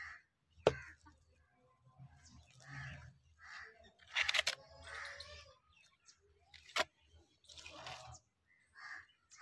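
A steel trowel scraping and knocking on bricks being laid in mud mortar, with two sharp clacks several seconds apart. Birds call in the background.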